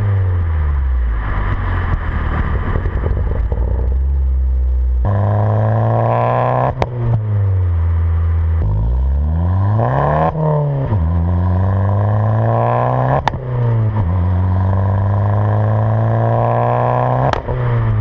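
Abarth 500's 1.4 turbocharged four-cylinder through a decat Ragazzon exhaust, recorded at the tailpipes: the engine revs up and drops back several times, and a sharp crack comes from the exhaust at about four of the drops. These cracks are the exhaust pops that come with flames from the tips.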